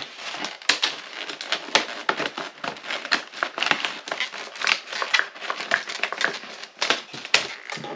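Stiff plastic clamshell packaging being cut open with hand cutters: an irregular run of crackling, crinkling and sharp snaps of the plastic.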